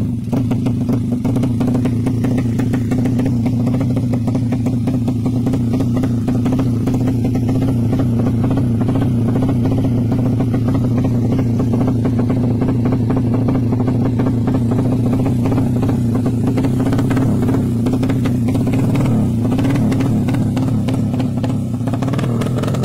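Drag-tuned Suzuki Satria FU's four-stroke single-cylinder engine, built up to 200cc, idling steadily through its racing exhaust with a fast, even putter.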